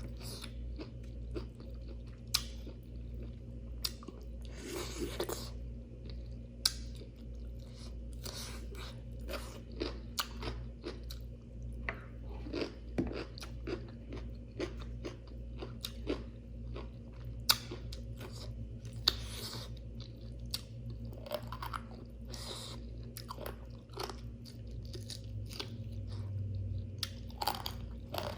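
A person chewing mouthfuls of food close to the microphone, with many sharp, irregular crunches, over a steady low hum.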